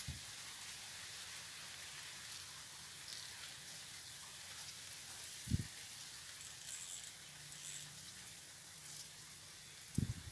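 Faint, steady hiss of outdoor ambience, with a short soft thump about halfway through and another just before the end.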